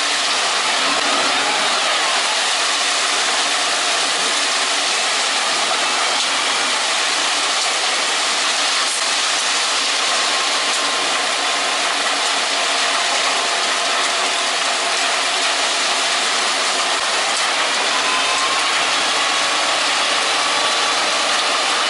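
Heavy construction machinery running steadily, engine noise mixed with mechanical rattle.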